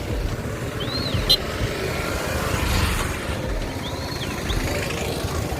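Steady low rumble, like a vehicle on the move, with two short high rising-and-falling chirps, about a second in and about four seconds in, and a sharp click just after the first.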